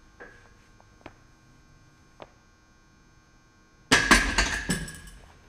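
Loaded barbell set back onto the steel rack's hooks after a locked-out bench press rep: a loud metal clang about four seconds in, ringing and rattling as it fades over a second and a half. A few faint knocks come before it.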